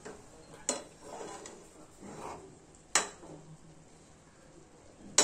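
Large metal spoon stirring noodles in a frying pan: soft scraping, with three sharp clinks of metal on the pan, about a second in, near the middle, and the loudest right at the end.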